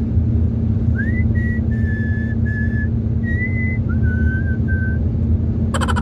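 A person whistling a simple tune of short held notes, over the steady low rumble of a moving car's cabin. A brief rattling noise comes near the end.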